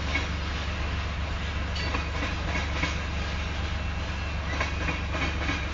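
Freight train hopper cars rolling past slowly: a steady low rumble of steel wheels on the rails, with a few faint clicks from the wheels.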